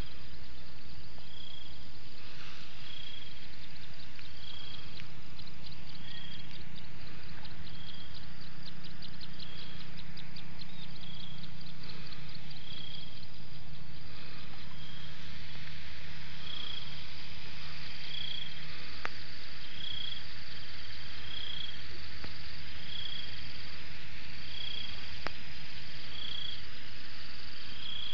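Outdoor animal ambience: a short high call repeating about every one and a half seconds over high insect chirring, with a faint low steady hum underneath.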